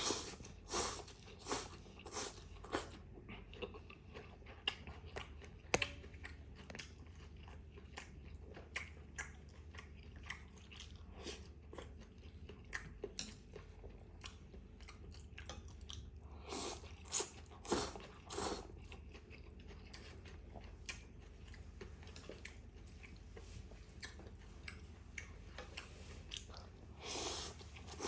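Close-miked mouth sounds of someone eating bún trộn bò, a Vietnamese beef vermicelli salad: chewing and biting with many irregular small clicks. A few louder mouth sounds come about two-thirds of the way through and again near the end.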